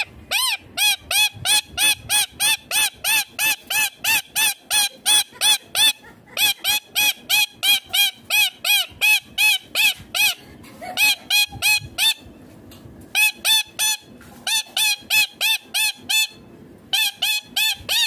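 Indian ringneck parakeet screeching: runs of loud, shrill calls, each rising then falling in pitch, about three a second, broken by short pauses.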